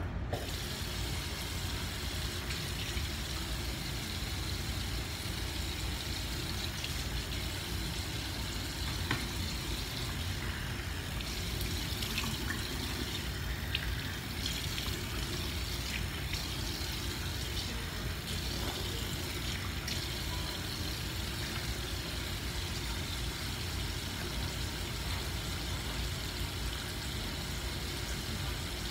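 Sink faucet running steadily while water is scooped by hand onto hair. The flow comes on right at the start.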